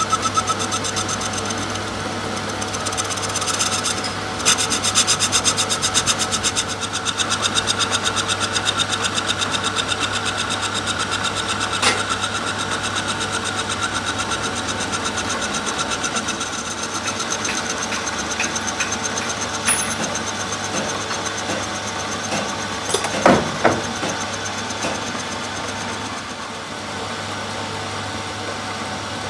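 Metal-working lathe running, its tool bit scraping a spinning pressure-cooker handle blank with a fast, even rasping under a steady motor hum. A sharp click about 12 seconds in and a few knocks about 23 seconds in.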